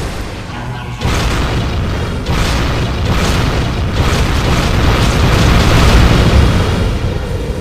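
Rocket launch sound effect: a loud, rumbling roar of rocket engines that surges about a second in and twice more, swells to its loudest near the end, then eases off.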